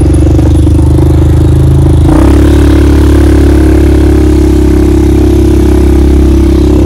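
Small vehicle engine running steadily under way, heard from the seat right behind the driver; its note changes abruptly about two seconds in.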